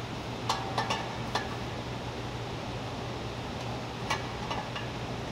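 Large pliers clicking and scraping on the flange of a stainless steel exhaust downpipe as the lip is bent flatter: a quick cluster of sharp metallic clicks about half a second to a second and a half in, and a couple more around four seconds, over a steady low hum.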